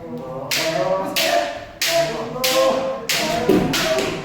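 Bamboo shinai striking kendo armour in a quick string of sharp cracks, about one every two thirds of a second and quicker near the end, over sustained shouted kiai.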